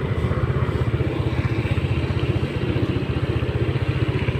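Motorcycle engine running steadily, heard from on the bike while riding, with a fast, even low pulse from its firing.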